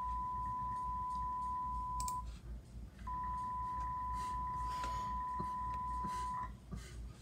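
A steady, pure high-pitched beep tone from a video playing through computer speakers. It stops about two seconds in, comes back about a second later, and cuts off near the end, with a few faint clicks around the break.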